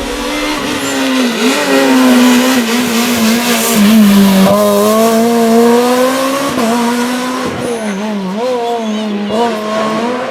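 Rally car engine running hard at high revs. Its pitch holds high but dips briefly several times, and it is loudest in the middle.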